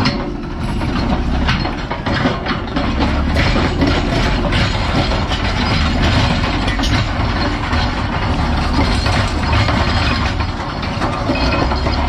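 Caterpillar D11N bulldozer ripping rock with its rear ripper shank, its V8 diesel running steadily under load. Many sharp knocks and cracks of rock and steel tracks sound over it throughout.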